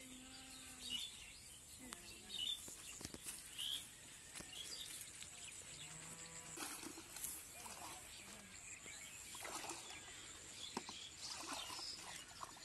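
Quiet rural outdoor ambience: scattered short bird chirps over a faint steady high hiss, with a couple of brief low tones and a few soft knocks and rustles.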